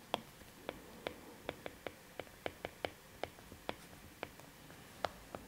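Stylus tip tapping on a tablet's glass screen while handwriting: a string of small, sharp clicks, irregular, about three or four a second.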